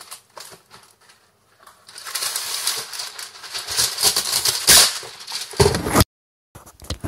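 A sheet of baking paper being pulled from its cardboard box and shaken out, crinkling and rustling with a sharp snap partway through. Near the end comes a louder knock as the phone recording it is bumped, then the sound cuts out for a moment.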